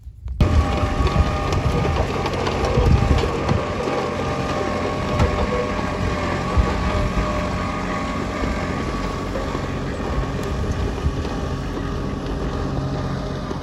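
Steady engine running, an unchanging hum with several constant tones, with wind noise on the microphone. It starts abruptly about half a second in.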